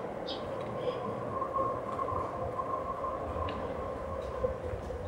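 A train running nearby: a low rumble under a steady whine, with a few brief high chirps over it.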